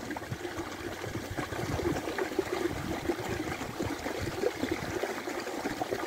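A small stream trickling over stones into a shallow pool, with a steady patter of small splashes.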